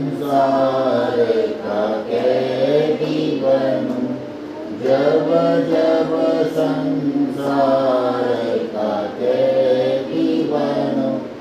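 Voices singing a Hindi devotional song (bhajan) together, in long held sung lines broken into phrases with short pauses between them.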